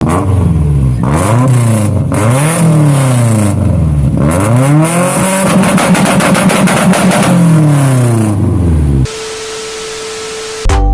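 Modified Honda Civic EK hatchback engine being revved over and over, its pitch climbing and dropping roughly once a second, then held high for a couple of seconds before falling away. About nine seconds in the engine cuts off abruptly, giving way to a steady tone with hiss.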